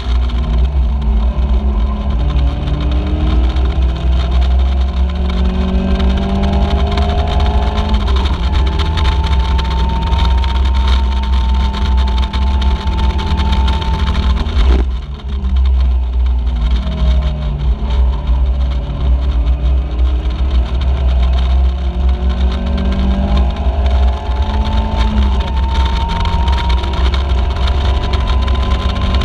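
Caterham Seven race car's four-cylinder engine at full throttle, heard from the cockpit. Its pitch climbs through the gears, holds high revs, drops sharply about halfway through as the driver lifts off, then climbs again. A heavy low rumble of wind buffets the open cockpit throughout.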